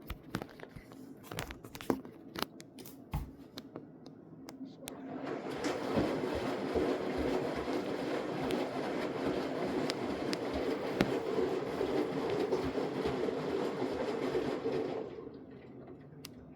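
Samsung AddWash front-loading washing machine in its rinse cycle: light clicks and knocks from the turning drum, then about five seconds in a steady rush of water with a motor hum, typical of a spray rinse with the drum spinning, which cuts off about fifteen seconds in.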